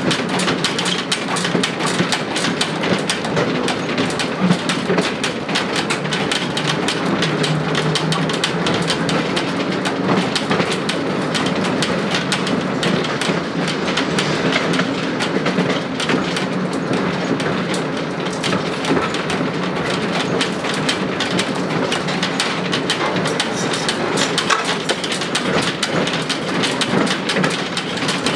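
Cabin noise of an RVZ-6M2 tram running along the line: steady rattling and clattering of the old car body and wheels on the rails, with a low hum underneath.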